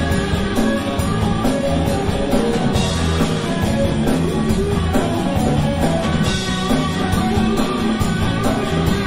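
A live band playing a seventies pop-rock song, with guitars and a drum kit keeping a steady beat.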